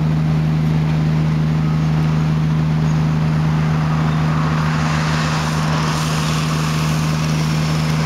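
A steady, loud machine drone with an even low hum, like an engine running at constant speed. A hiss builds up over it about halfway through.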